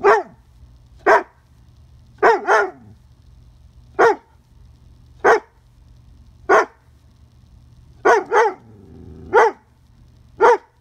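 Young Doberman pinscher barking at a beetle: about eleven sharp single barks roughly a second apart, a few coming in quick pairs.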